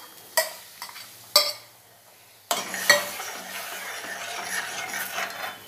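A bowl of cooked toor dal knocked twice against a stainless-steel pot as it is emptied in. About halfway in, a steel ladle starts stirring and scraping through the gravy in the pot.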